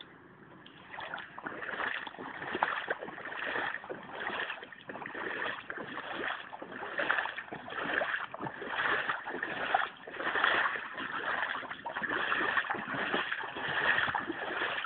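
Floodwater splashing and sloshing in repeated uneven surges, starting about a second in.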